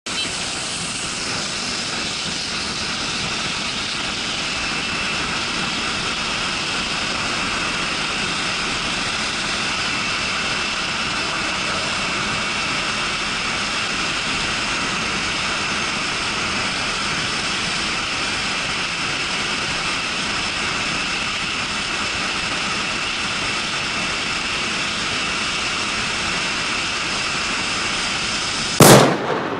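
Steady wind rush and engine drone of a Yamaha R25 sport bike cruising at road speed, picked up by a helmet-mounted camera. A brief loud burst comes near the end, and then the sound cuts off.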